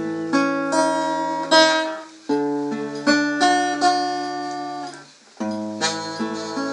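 Acoustic guitar playing a song's introduction: chords struck one after another and left to ring, with brief breaks about two and five seconds in before each new chord.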